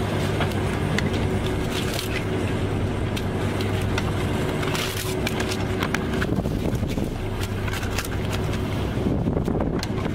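Fishing boat's engine running with a steady low hum, which weakens about six seconds in, under scattered sharp clicks and knocks.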